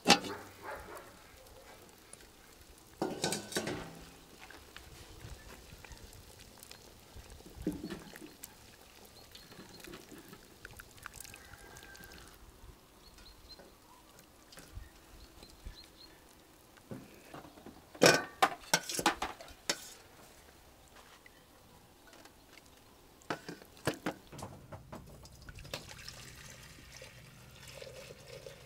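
Metal cookware clanking: a cauldron lid clanks as it is lifted at the start, then scattered clatters of tongs and pots against metal, loudest in a quick run of clanks about two-thirds of the way through. Near the end, cooking liquid is poured from a pot into a glass bowl.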